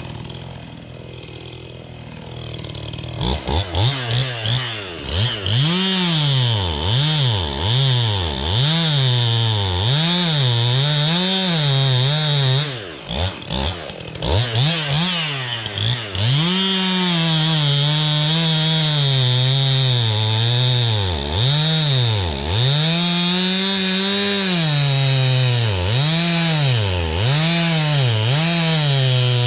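Two-stroke chainsaw. It comes up to speed about three seconds in and revs up and down about once a second, then from about halfway runs at steady high speed with brief dips, as it does when cutting into a tree.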